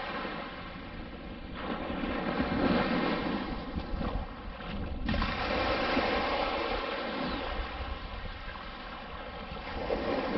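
Small waves washing up on a sandy shore, the wash swelling and fading every few seconds, with wind on the microphone.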